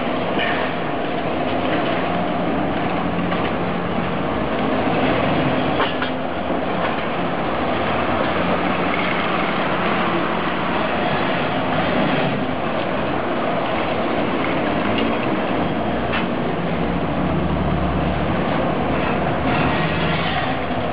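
Steady city street traffic: large buses and cars running and idling, with engine hum that swells and fades as vehicles move.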